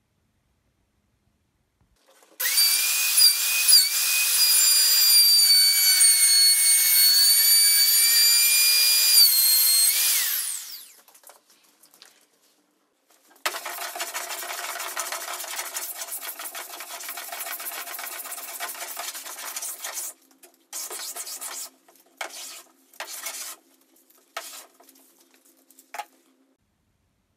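A small high-speed power tool runs with a loud, high-pitched whine for about eight seconds while trimming or working the walnut veneer on an MDF desk-top edge, then stops. After a pause, a hand tool scrapes steadily along the veneered edge, ending in a few short separate strokes.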